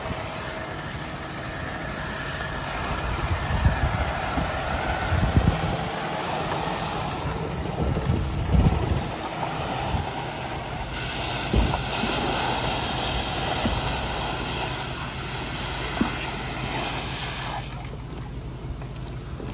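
Fire hose spraying water onto smouldering trash, a steady rushing hiss that grows brighter partway through and drops away near the end. Wind buffets the microphone with low gusts in the first half.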